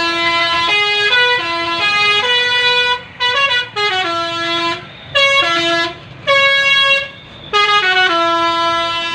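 Telolet horn, the multi-tone musical air horn fitted to Indonesian buses and trucks, playing a quick stepped melody of a few notes. It sounds in about six short phrases with brief breaks between them.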